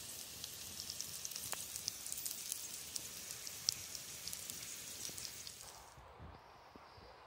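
Halved baby potatoes frying in a pan, sizzling with many fine crackles and pops. The sizzling stops about six seconds in, leaving faint outdoor quiet.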